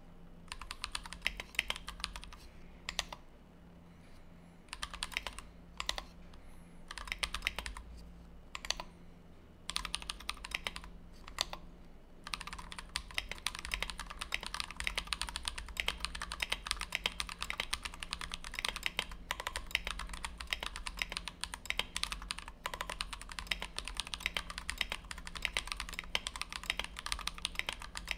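Mechanical keyboard typing on a Tofu 60 with a brass plate, lubed and filmed Everglide Dark Jade tactile switches and PBT OEM-profile keycaps. The first twelve seconds or so are short bursts of keystrokes with pauses between them, then steady fast typing.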